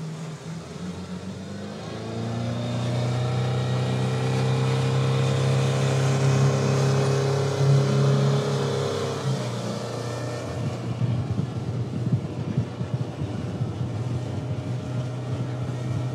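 Suzuki outboard motor driving a boat under way. Its note rises about two seconds in and then holds steady at speed. From about ten seconds in, rougher rushing and spattering of water and spray takes over.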